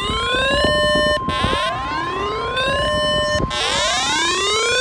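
The NOAA Weather Radio 1050 Hz warning alarm tone sounding steadily, the signal that sets off alert radios. Over it, an electronic siren alert rises in pitch, holds, then cuts off, repeating about every two seconds.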